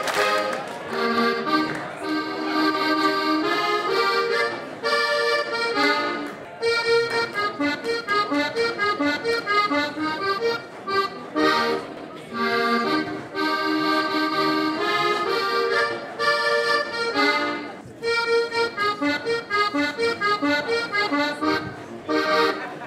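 Button accordion playing a lively traditional folk tune, in phrases broken by short pauses every few seconds.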